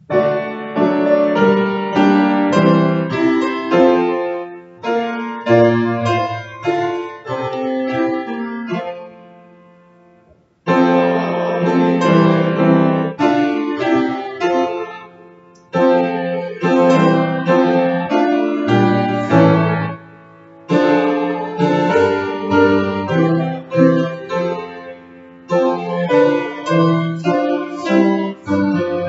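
Solo piano playing a closing postlude: phrases of chords and melody whose notes die away at the pauses, fading out about ten seconds in before starting up again.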